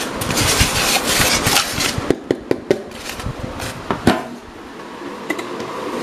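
Packing being pulled out of a semi-automatic washing machine's plastic spin-dryer tub: rustling for about two seconds, then a run of sharp knocks and clicks against the tub, the loudest near the end of the run.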